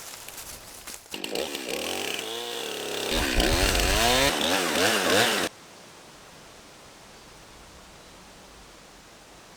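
Chainsaw running with its engine speed wavering up and down, getting louder about three seconds in, then cutting off abruptly. A faint steady hiss follows.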